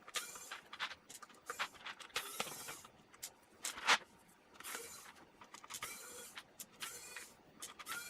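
Screwdriver backing out the tiny screws of a Commodore 64 keyboard: short squeaky scraping bursts about every half second, with one sharper, louder one about four seconds in.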